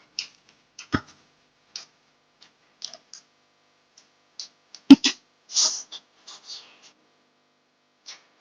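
Close-miked eating sounds: scattered wet mouth clicks and smacks of chewing, with two sharper knocks about a second in and near the middle, and a short slurp just after the second knock.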